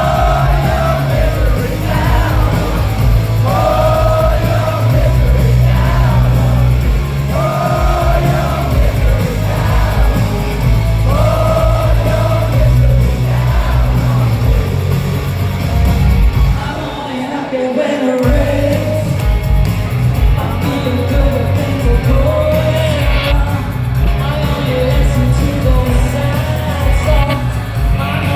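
Live rock band playing loudly, a female lead vocal singing over heavy bass and drums. About seventeen seconds in, the bass cuts out for a moment before the band comes back in full.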